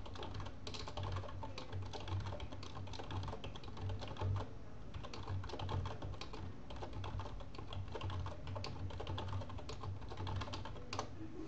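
Typing on a computer keyboard: a run of irregular keystrokes as short names are typed in one after another.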